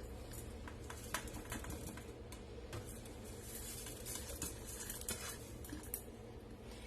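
Faint, scattered clinks and taps of spices and small ingredients being tipped from small bowls into a mixer-grinder jar, a dozen or so light ticks over a low steady hum.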